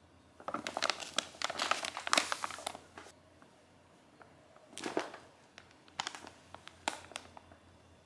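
A paper shopping bag crinkling and rustling as a cat wearing it shifts and turns inside it. There is a dense run of crinkling over the first few seconds, then three shorter rustles.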